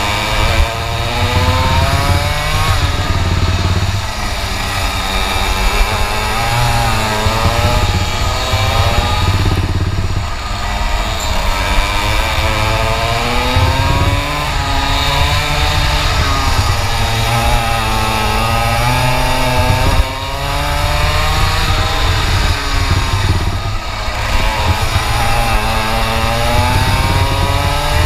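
A 125 cc two-stroke kart engine heard onboard at full race load. Its revs climb and drop several times as the kart accelerates down the straights and lifts for the corners, over a steady low rumble.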